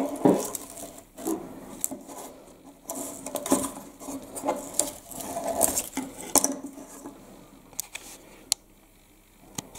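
Handling noise of a twig wreath being adjusted by hand on a wooden table: dry twigs and burlap ribbon rustling, with irregular light clicks and knocks of the decorations and the wreath against the table. The handling thins out to a few isolated clicks near the end.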